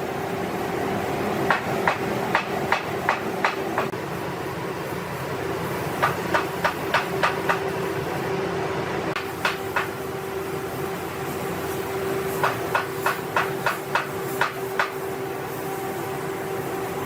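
Hammer blows in quick runs of five to seven, about three a second, with pauses between the runs, over a steady hum.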